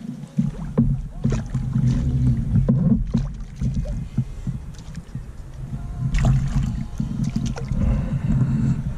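Clicks and knocks of rod, reel and gear against a plastic fishing kayak as a hooked fish is reeled up alongside, over a steady low rumble.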